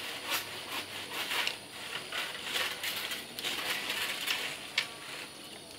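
Leafy tree branches rustling and crackling in repeated bursts as they are handled and pulled, with a sharp snap of a twig a little before the end.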